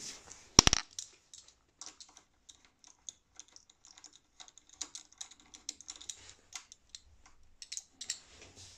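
Irregular light metallic clicks and clinks of a hand ratchet and socket undoing the 8 mm bolts on a Brembo front brake caliper, with one sharp double clack about half a second in.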